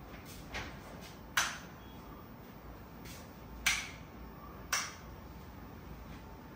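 Wall light switches being flipped: four short, sharp clicks spread over a few seconds, the first one faint.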